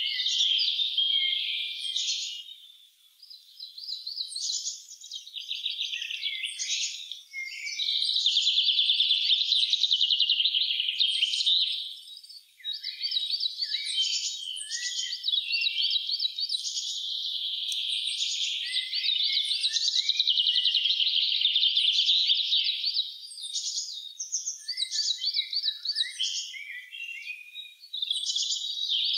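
Spring woodland songbirds singing together: a dense chorus of rapid trills and high chirps that thins out briefly about three seconds in and again around twelve seconds.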